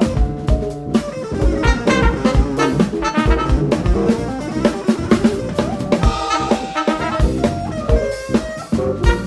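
Live jazz band playing, the drum kit to the fore with steady bass drum beats and snare and rimshot hits, horns holding notes over it.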